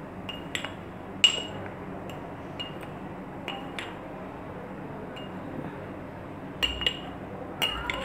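Metal spoon clinking against a glass grinder jar while stirring ground spice powder. Scattered light clinks with a short ring, the loudest about a second in, then a lull and a quick run of clinks near the end.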